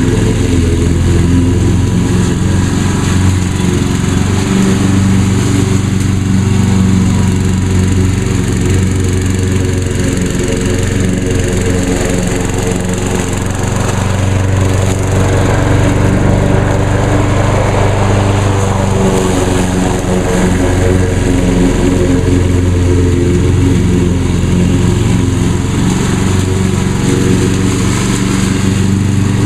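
2010 Craftsman EZ2Walk walk-behind mower's Briggs & Stratton engine running steadily while mowing grass.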